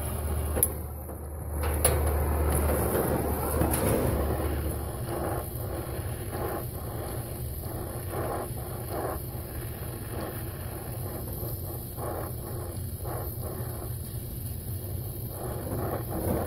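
Brazing torch flame hissing steadily as it heats a copper refrigerant line joint at a compressor. A sharp click about half a second in, and a louder stretch with a low rumble in the first few seconds.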